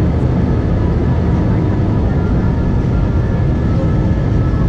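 Airbus A320-200's turbofan engines at take-off thrust, heard from inside the cabin over the wing: a loud, steady rumble with faint steady whines above it as the airliner lifts off and climbs.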